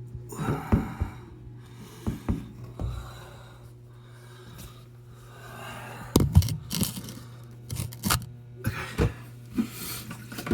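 Handling noises: irregular knocks, scrapes and rustles of objects being picked up and moved, over a steady low hum.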